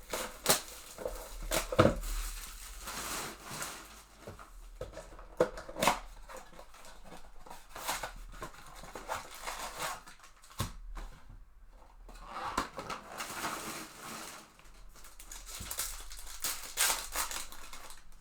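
Trading-card box and foil packs being opened: plastic wrapping crinkling and tearing, with sharp snips and clicks, in an irregular run of short bursts.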